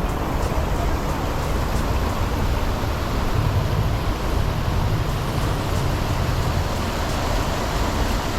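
A steady rushing noise with a heavy low rumble.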